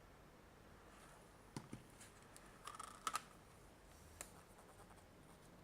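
Near silence broken by a few faint clicks and taps of small plastic items being handled: two about a second and a half in, a short cluster around three seconds, and one more just after four seconds.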